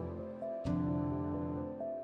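Instrumental background music with sustained notes, a new chord struck about every second and a half.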